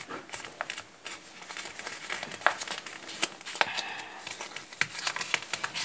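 A sheet of white paper being folded and creased by hand: irregular crinkling and rustling, with scattered sharp crackles as folds are pressed.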